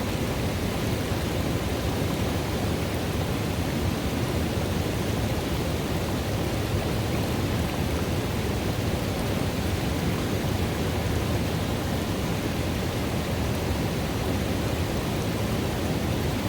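River water running steadily into and through a pool: a constant, deep rush of water that stays even throughout.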